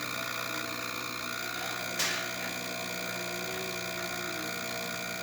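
Jura E8 automatic espresso machine running steadily through a cappuccino cycle, its pump humming. A sharp click comes about two seconds in.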